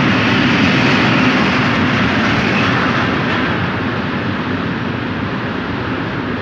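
Freight train of open-top gondola wagons rolling past on the rails, a steady wheel-and-rail rumble that slowly fades as the last wagons move away.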